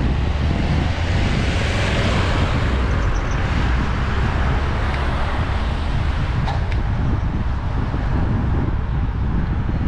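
Wind buffeting the microphone of a bike-mounted action camera, with a steady low rumble of tyre and road noise as a road bike rolls along.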